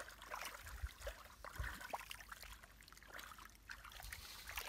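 Hands moving through shallow muddy water: faint sloshing and trickling with scattered small splashes and a couple of soft wet thumps.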